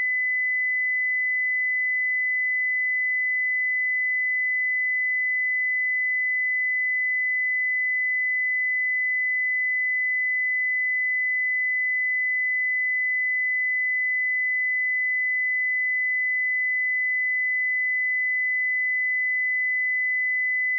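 A pure 2008 Hz sine-wave test tone, one steady high-pitched beep held at a constant level.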